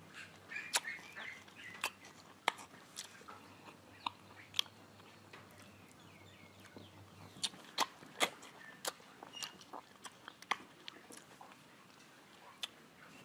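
Biting and chewing of mango slices, with the skin peeled off by fingers in between. It is heard as irregular short, sharp wet clicks, most frequent about eight seconds in.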